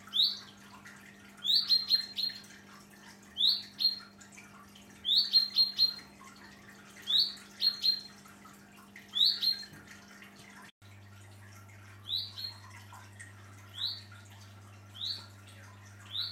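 Chaffinch calling over and over: short, sharp rising notes, singly or in quick runs of three, about every two seconds. These are a young chaffinch's calls for its parents.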